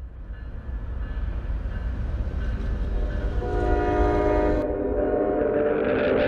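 Train rumbling low and steady while its horn sounds: a chord of held tones comes in about halfway through and grows louder.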